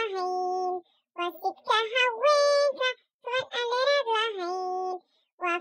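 A high-pitched, child-like voice singing unaccompanied in three short phrases, each ending on a held note, with brief silences between them.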